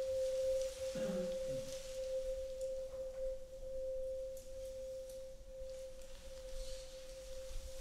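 A steady electronic sine tone held unchanged at one mid pitch, with faint scattered rustles of paper strips being handled. A brief low sound comes about a second in.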